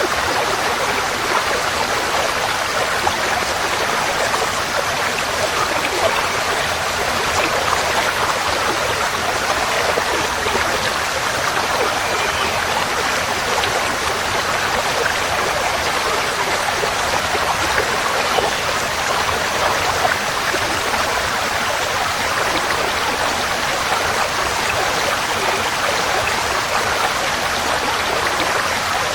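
Forest stream flowing steadily over rocks, an even rushing and burbling of water.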